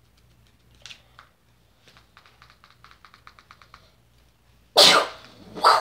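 A quick, even run of light typing taps, about six a second, as a device is typed on, then two loud bursts of rushing noise near the end, about a second apart.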